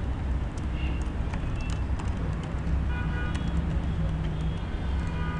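Computer keyboard typing, light irregular key clicks, over a steady low background rumble.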